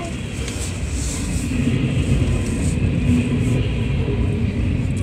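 Freight train rolling past a grade crossing: a steady rumble of wheels on rails.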